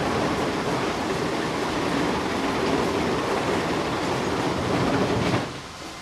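Sawmill machinery running with a loud, dense clattering rumble that cuts off abruptly about five and a half seconds in, leaving a quieter steady hum.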